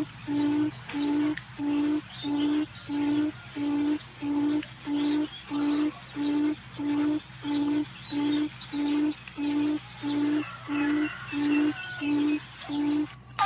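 Forest quail (puyuh hutan) lure call: a low hooting note repeated evenly about one and a half times a second, stopping just before the end, with faint chirps of other birds above it.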